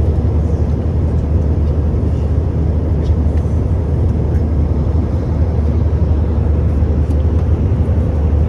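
Steady, loud low rumble of a vehicle in motion, unbroken throughout.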